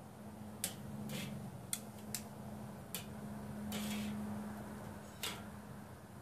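Metal grilling tongs clicking shut and tapping the steel cooking grate of a Weber kettle grill as chicken pieces are picked up and turned: about seven short, sharp clicks, unevenly spaced.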